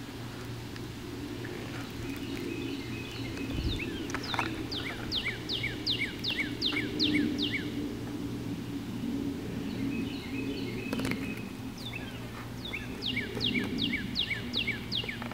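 A songbird sings two phrases, one about four seconds in and one near the end. Each phrase is a quick run of about ten clear notes, each dropping in pitch. Under it runs a steady low background hum.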